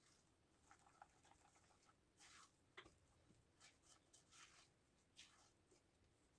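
Very faint, irregular scraping and clicking of a metal fork stirring bread dough in a ceramic bowl, barely above near silence.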